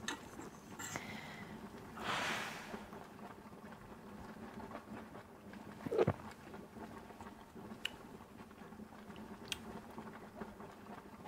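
Faint sounds of a man chewing a mouthful of food, with a short hiss about two seconds in and a single light knock about six seconds in.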